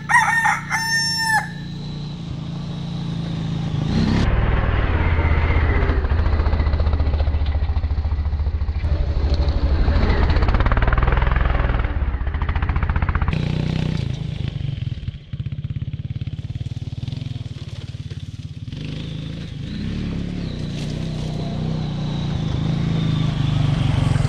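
A rooster crows once at the very start, then an ATV (four-wheeler) engine runs steadily, easing off in the middle and growing louder again as the quad drives up close near the end.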